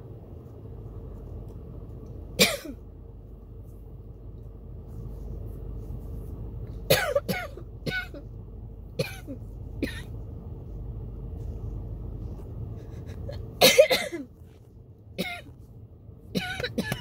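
A person coughing in a fit set off by a tickle in the throat: single coughs a second or so apart, a harder double cough about three-quarters of the way through, and a quick run of coughs near the end. A steady low hum of the car cabin runs underneath and drops away briefly after the double cough.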